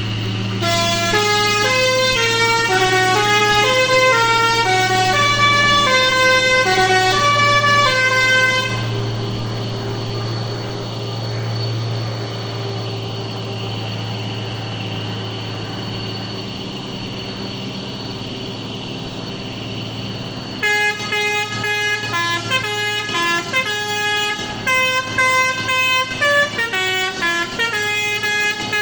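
Mitsubishi Fuso PS220 truck engine running steadily under load on a climb. Over it a multi-tone melodic horn plays quick runs of notes for the first several seconds and again from about two-thirds of the way in.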